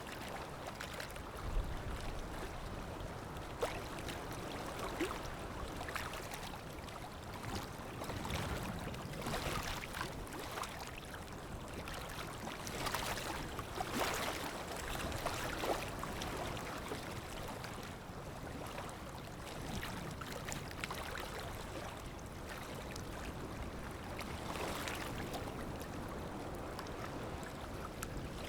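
Sea water lapping and splashing close up, with small splashes and gurgles over a steady wash and gentle swells every few seconds.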